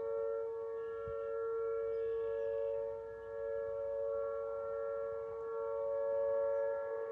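Outdoor tornado warning siren sounding a steady two-note tone, its loudness slowly swelling and fading. It is sounding for a tornado drill, not a real warning.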